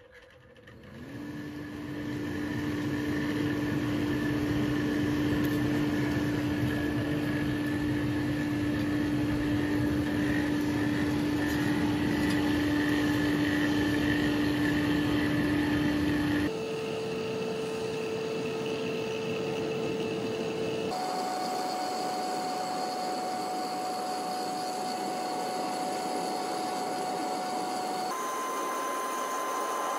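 Forge air blower spinning up and running, driving air into a charcoal forge fire: a steady rushing hum with a single whine. The whine jumps abruptly to a higher pitch three times in the second half.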